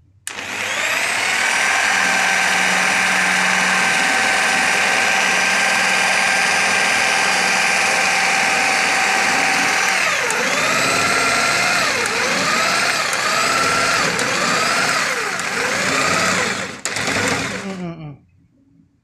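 Daewoo corded jigsaw's motor running at its slowest speed setting, steady for about ten seconds. Its pitch then dips again and again, roughly once a second, as the blade bites into the wood. Near the end it is switched off and whines down.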